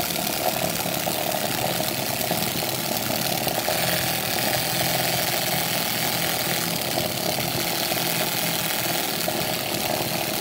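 Home-made Doodle Bot running: its small DC motor spins an offset counterweight, so the plastic cup vibrates steadily and its felt-pen legs tap across the paper.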